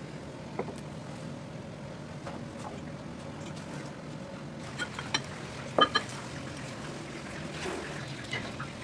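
Steady low hum with a few sharp metallic clinks about five to six seconds in, like a utensil striking cookware.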